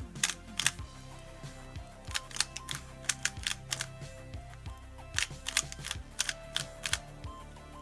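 Plastic speedcube being turned quickly, a run of sharp, irregular clicks as the layers snap round, over background music with low held notes.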